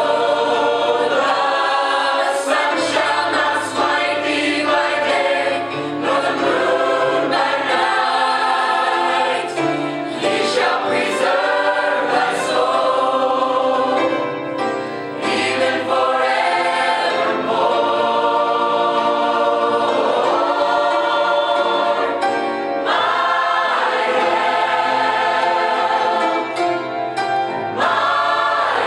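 Mixed choir of men's and women's voices singing a gospel song, continuous and full.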